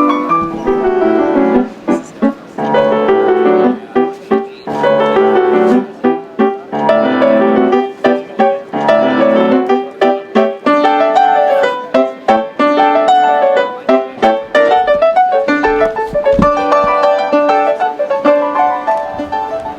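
A grand piano being played: a melody of many quick struck notes, with short breaks between phrases.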